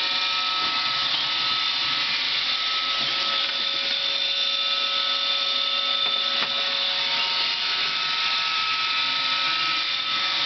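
iRobot Roomba 550 robot vacuum running while it cleans: a steady machine whine with several held high tones over an even rushing hiss.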